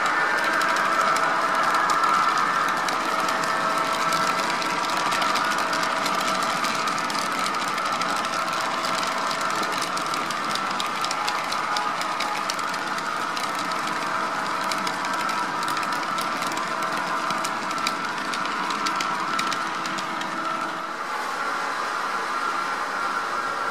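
HO-scale model freight cars rolling past on metal track, their wheels clicking over the rail joints, over a steady whining hum from the train. The clicking is thickest in the middle, and the hum changes and drops a little about three seconds before the end.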